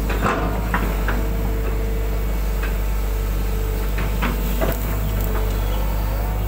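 Hydraulic excavator's diesel engine running steadily under load, with a held hydraulic whine, while the boom and bucket work wet soil. Several short clunks and knocks from the bucket and boom linkage break through, a few about a second in and more around four to five seconds in.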